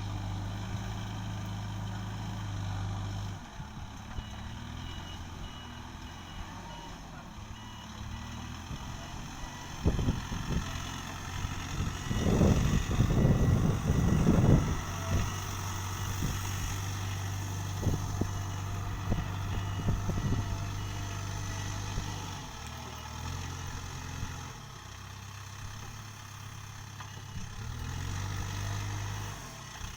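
Backhoe loader engine running steadily, with a reversing alarm beeping through the first half and a burst of loud clanks and knocks about ten to fifteen seconds in, the loudest part.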